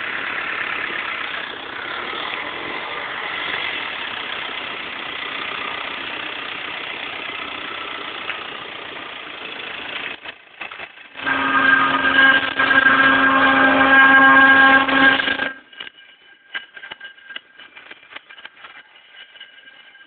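BMW 320td diesel engine running steadily, then cutting out about ten seconds in. A loud sound with a steady pitch follows for about four seconds and stops abruptly, leaving only faint clicks.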